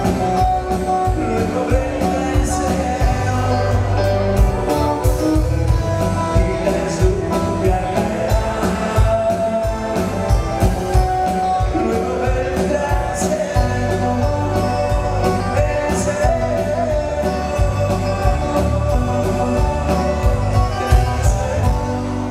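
Live band playing a song: male lead vocal over electric bass, keyboard and drums, with a steady drum beat.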